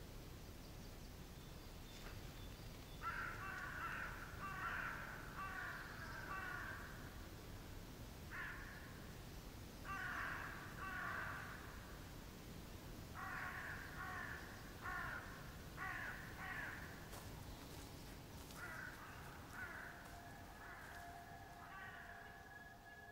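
Crows cawing in repeated bouts, several harsh caws at a time with short pauses between bouts. A steady electronic tone comes in near the end.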